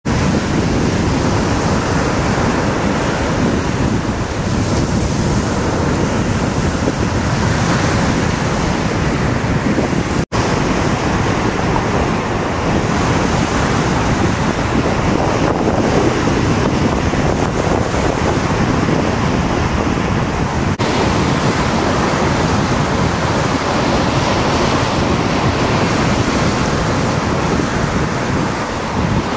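Heavy lake waves on Lake Huron crashing and washing up a sloping stone revetment, a continuous loud surf, with wind buffeting the microphone.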